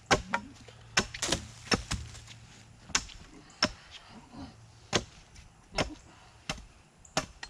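Hatchet chopping into the lower end of an upright wooden pole: about a dozen sharp strikes at uneven intervals.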